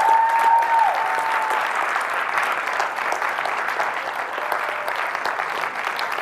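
Audience applauding after a talk, with one long held whoop from the crowd over the first second and a half.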